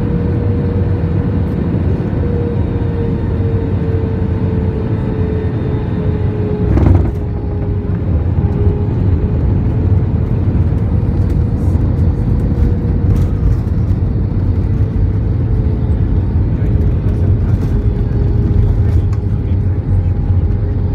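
Cabin noise of an AirAsia Airbus A320 on final approach: a steady rumble of engines and airflow with a steady whine that sinks slightly in pitch. A single brief thump about seven seconds in.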